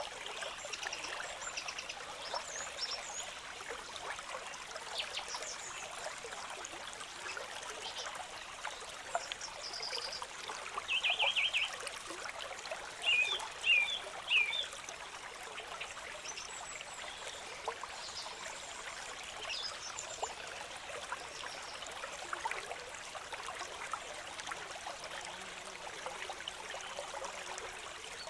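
Stream water trickling and running steadily. Short bursts of rapid chirping calls come through about eleven and thirteen seconds in, with fainter high chirps here and there.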